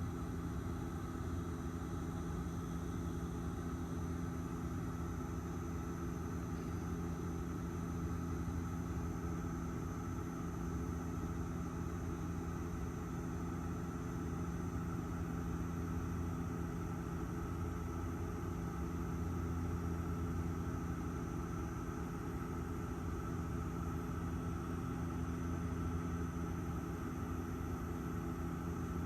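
Airliner cabin noise in flight: a steady drone of the engines with several held tones over an even rush of air, heard from inside the cabin.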